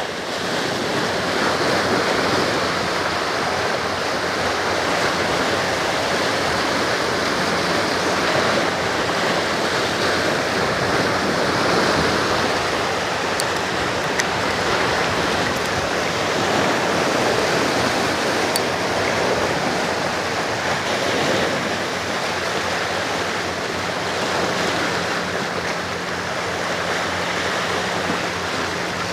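Sea water washing and rushing against shoreline rocks, a steady even surge, with a faint low hum growing in the background near the end.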